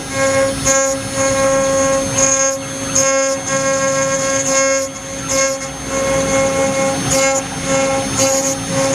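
Acctek AKM6060 CNC router spindle running with a steady whine while its engraving bit cuts a brass/copper plate. A higher, harsher tone comes and goes about once a second as the cutter moves through its passes.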